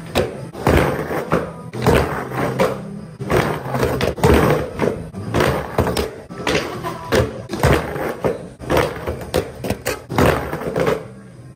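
Skateboard rolling on concrete and riding up onto a concrete curb, with sharp knocks of the board hitting and landing. Background music with a stepping bass line plays underneath.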